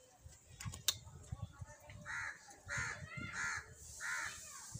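A crow cawing, about five short caws in quick succession from about two seconds in, with a sharp click just under a second in.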